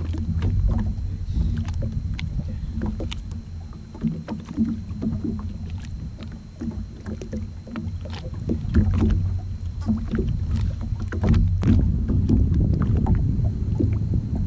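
Steady low drone of an idling watercraft engine, growing louder about three-quarters of the way through, with scattered clicks and knocks of fishing gear being handled on the deck.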